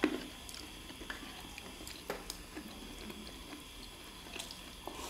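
Metal spoons scraping and clinking against ceramic rice bowls, with soft chewing; a sharper clink at the start and another about two seconds in.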